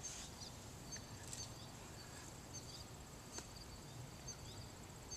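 Faint outdoor ambience of insects and small birds: a steady high trill with scattered short high chirps, and a couple of faint ticks.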